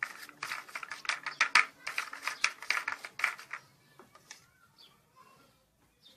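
Metal spoon scraping and clicking rapidly across a clear plastic chocolate mould, clearing off the excess melted chocolate. The clicking runs for about three and a half seconds, then dies down to a few faint taps.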